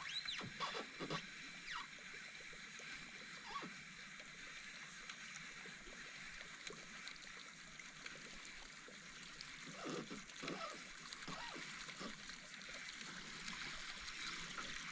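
Faint creek ambience: water trickling with small splashes, and a few short sharp sounds near the start and again around ten seconds in.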